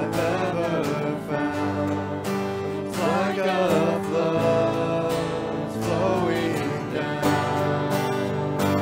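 Live church worship band playing, with guitars and keyboard under singing voices.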